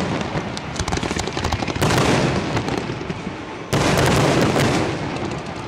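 Fireworks display: aerial shells and rockets going off in quick succession, with rapid crackling and popping throughout. Two heavy bursts start sharply, about two seconds in and again just before four seconds.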